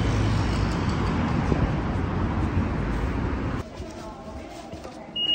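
Street traffic noise, a steady rush of passing cars, that cuts off abruptly about three and a half seconds in, giving way to quieter station ambience. Near the end comes a short, high electronic beep.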